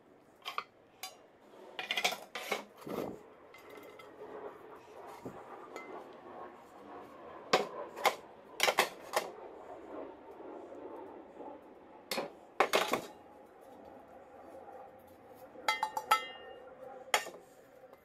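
Old non-stick frying pans clanking and knocking against each other and the wooden table as they are picked up, moved and set down: scattered sharp metal knocks, some in quick clusters, with a short rattle and ringing clink near the end.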